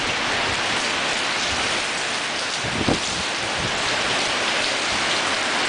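Driving rain and gusting wind of a downburst, a steady rushing hiss, with a short low thump about three seconds in.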